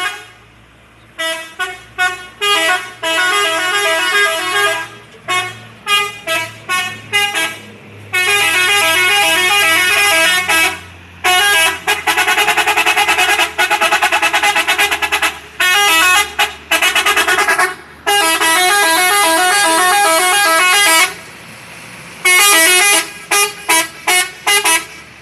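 Indonesian bus "telolet" multi-tone musical horn playing loud tunes. It plays several short bursts of quick notes, then long stretches of rapidly alternating notes, and ends with a few short toots, over a faint low engine hum.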